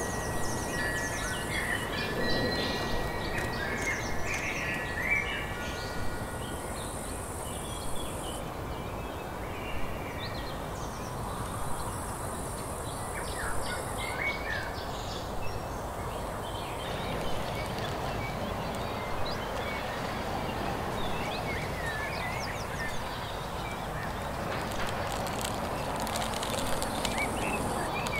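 Small songbirds chirping and singing in short, scattered phrases and trills, with a held whistled note in the first few seconds, over a steady outdoor background noise.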